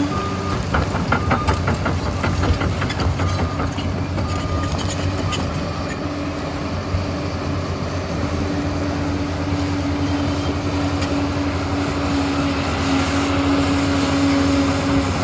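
Liebherr 746 crawler dozer's diesel engine running steadily under work, with a run of rapid clattering clicks in the first few seconds, typical of the steel tracks moving.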